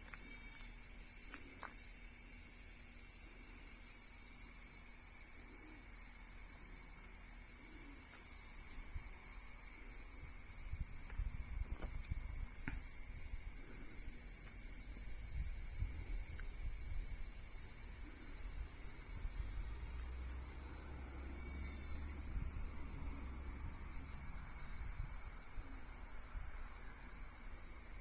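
Steady chorus of summer insects, a shrill high buzz whose pitch shifts about four seconds in and again near twenty seconds. A faint low rumble swells through the middle.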